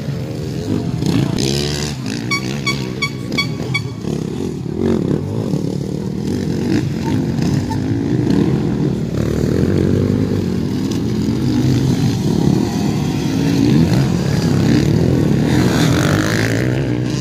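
Motocross dirt bikes' engines revving hard as riders race past on a dirt track, rising and falling as they pass, with a sharp rising rev near the end.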